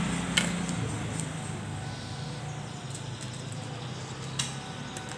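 A cardboard smartphone box being handled and worked open by hand: a sharp click about half a second in and another about four seconds later, over a low steady background hum.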